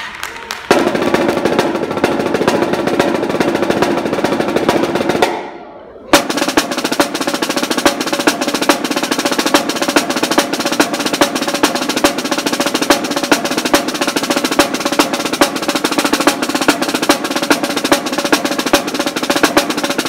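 Snare drum played fast in rolls and rudiment patterns with sharp accented strokes. The playing breaks off about five seconds in, then starts again with a hard accent and keeps going at a rapid steady pace.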